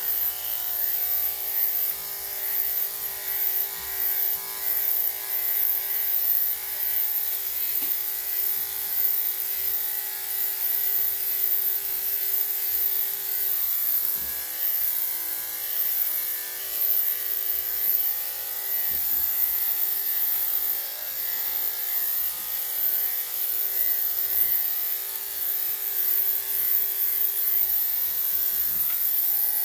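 Corded electric dog clippers fitted with a #3 3/4 blade running with a steady hum, the level rising and dipping as the blade is pushed through a Yorkshire Terrier's coat.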